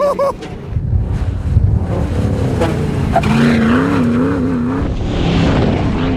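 Lifted Jeep Cherokee XJ's engine revving hard under acceleration on loose dirt. Its pitch wavers up and down as the tires spin and bounce, over a constant rush of tire and gravel noise.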